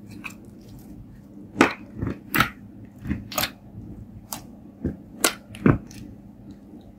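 Fingers pressing and poking a lump of glitter slime on a tabletop, giving about nine irregular sharp sticky pops and clicks.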